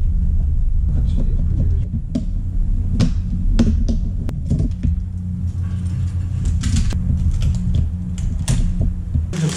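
Scattered clicks and snaps of plastic as a laptop's screen cover is pried open and taken apart by hand, over a steady low hum.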